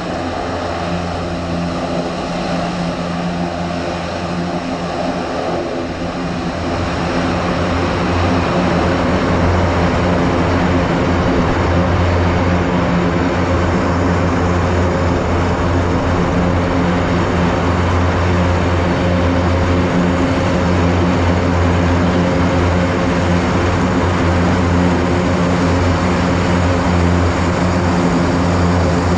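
The Airbus A400M's four turboprop engines running on the ground. Their propellers make a steady drone with a strong low hum. The sound grows louder about seven seconds in and then holds steady.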